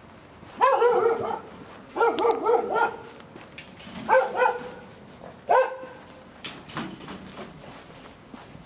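A dog barking four times in drawn-out, wavering barks. The first two are longest and the last two short, with a few faint clicks afterward.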